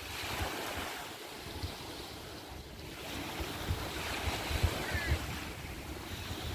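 Small waves washing onto the beach, swelling and fading twice, with wind buffeting the microphone in low rumbles.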